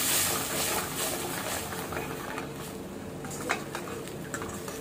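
Steel ladle stirring and scraping tomato paste and onions in a stainless steel kadai, with a light sizzle from the pan that fades over the first two seconds and a few sharp clicks of the ladle against the metal, the loudest about three and a half seconds in.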